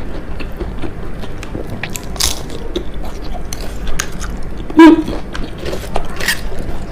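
Close-miked chewing and crunching of crispy fried food, with irregular crisp crackles throughout and one louder short sound about two-thirds of the way through.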